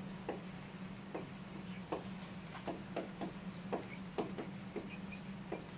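Dry-erase marker writing on a whiteboard: a string of short taps and strokes, several a second, as the letters are written, over a steady low hum.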